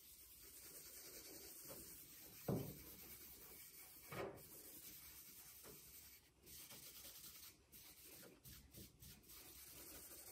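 Faint rubbing of a cloth over a wooden cutting board as oil is wiped into the surface, with two light knocks, the louder about two and a half seconds in.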